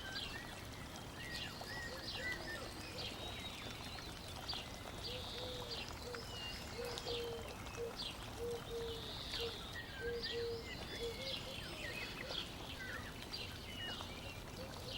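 Birds chirping over a steady hiss, with a run of short, low, evenly repeated notes in the middle.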